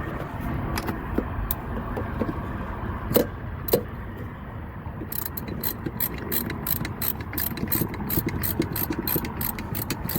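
Hand ratchet turning a deep well socket to run in a mounting bolt: a few separate metal clicks and clanks at first, then from about five seconds in a steady run of pawl clicks at about three to four a second.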